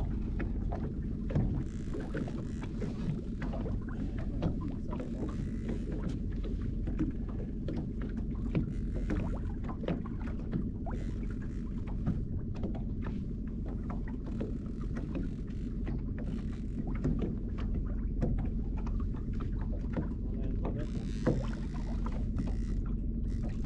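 Small fishing boat's outboard motor running steadily at trolling speed, with water washing along the hull and scattered knocks and clicks from gear being handled aboard.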